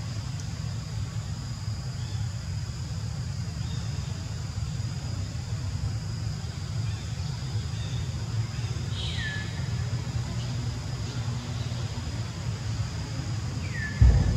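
Outdoor background with a steady low rumble. A few short, high, falling calls come about nine seconds in and again near the end, followed by a brief low thump.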